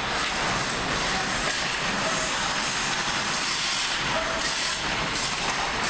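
Steady hiss of ice hockey play in a rink, with skates scraping the ice. There are a couple of faint, short distant calls from players.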